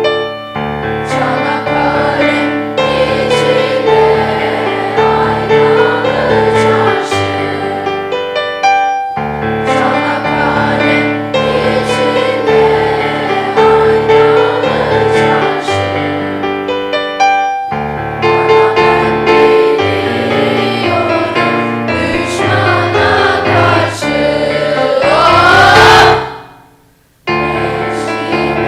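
Choir singing with keyboard accompaniment in sustained held chords. Near the end the music swells to its loudest, cuts off suddenly for under a second, then starts again.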